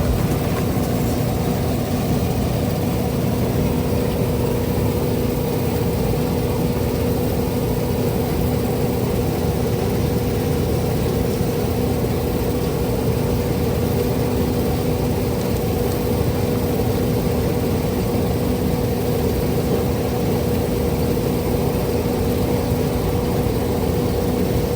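An engine running steadily at a constant speed, a low rumble with an even hum.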